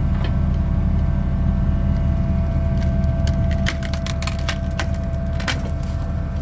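Farm machine's engine running steadily with a low rumble and a constant whine, overlaid about three seconds in by a quick run of sharp cracks and knocks, the loudest near the end.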